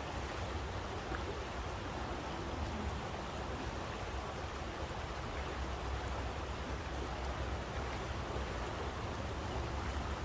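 Steady rushing white noise with a deep rumble underneath and a few faint ticks.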